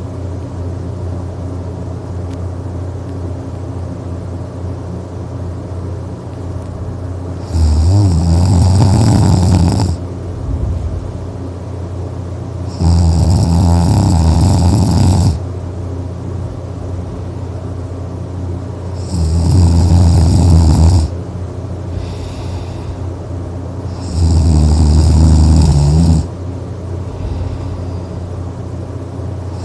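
A person snoring loudly, four long snores each about two seconds long and coming every five to six seconds. A steady low hum runs underneath.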